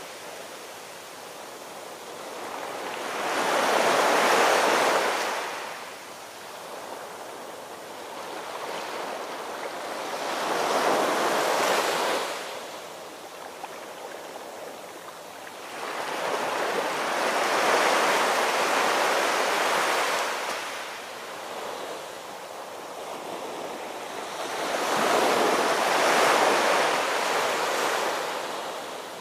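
Ocean waves washing onto a shore, a rushing swell rising and falling about every seven seconds, four times over.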